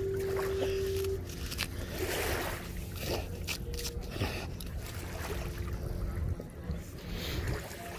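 Shallow water sloshing and splashing in short bursts, as a dog paws and digs for a rock under the water, over a steady low wind rumble. A steady single-pitched tone holds until about a second in, then stops.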